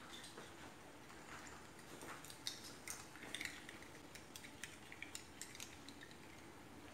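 A spoon stirring yellow food colour and kewra water in a small bowl: a faint run of light, quick clinks and taps, thickest in the middle.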